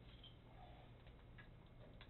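Near silence: a low steady hum with a few faint, light clicks.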